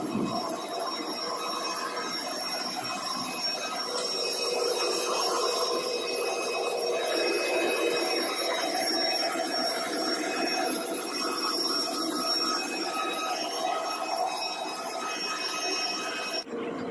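Steady whine and rushing roar of jet aircraft on an airport apron, several high whining tones held over a broad hiss. It cuts off abruptly near the end.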